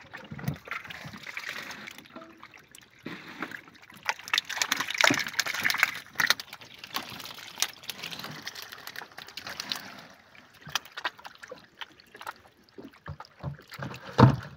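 Water sloshing and splashing in the bottom of a wooden canoe among a pile of freshly caught catfish, with many scattered wet slaps and clicks. The splashing is louder about four to six seconds in, and a sharp knock near the end is the loudest sound.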